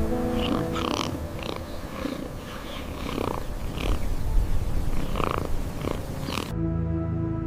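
A cat purring, a dense low rumble with several short high calls over it. About a second before the end it cuts abruptly to soft ambient music.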